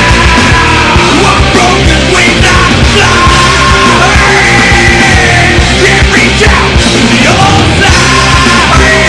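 Loud rock music: a long held, strained vocal line over guitars and drums.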